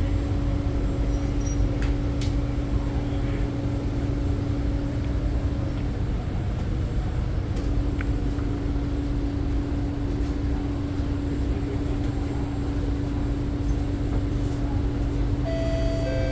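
Kawasaki-Nippon Sharyo C751B train standing at a platform: a steady low rumble with a constant electrical hum from its onboard equipment, and a few faint clicks. Near the end, a set of steady beeping tones begins.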